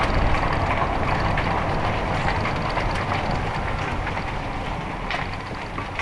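A vehicle moving along: a steady low rumble with scattered small clicks and rattles, easing slowly in level.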